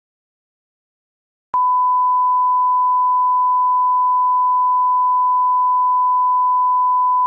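Broadcast line-up test tone, the steady single-pitch reference tone played with colour bars. It starts with a small click about a second and a half in, after dead silence, and holds at a constant pitch and level.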